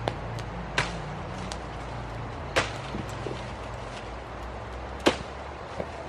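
Hand hoe chopping into soil while weeding cassava: sharp, separate strikes at an uneven pace, about one every one to two seconds, over a low steady hum.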